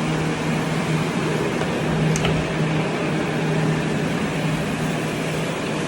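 Water-damage drying equipment (air movers, dehumidifiers and air scrubbers) running steadily: an even rush of air over a constant low hum, with one faint click about two seconds in. It is the drying-out stage of flood mitigation.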